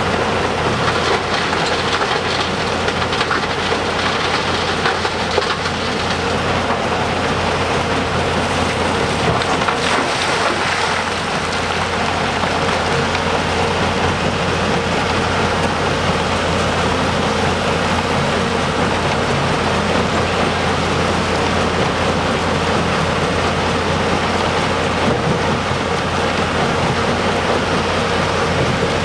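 Heavy diesel earthmoving machinery working: a large excavator and articulated dump truck running steadily under a dense, even noise, with a constant mid-pitched whine and low hum throughout.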